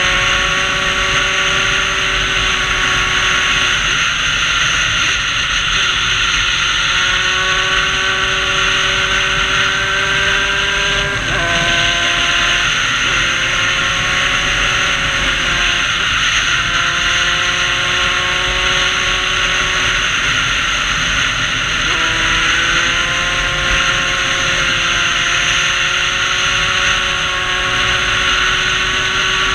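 Sherco moped's 75 cc MVT two-stroke kit engine running under load. The engine note climbs slowly and drops sharply about four times, at gear changes or throttle lifts, with wind rumbling on the helmet microphone.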